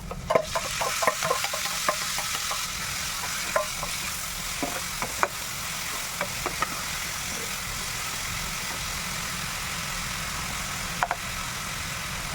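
Tomatoes frying in hot oil in a kadai, a steady sizzle that swells as they go in at the start. A spatula clicks and scrapes against the pan, many times in the first couple of seconds and then now and then.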